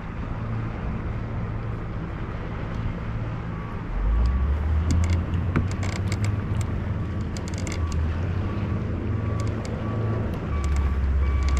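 Wind rumbling on the microphone, heavier from about four seconds in, with scattered light clicks and a faint beeping that repeats through the second half.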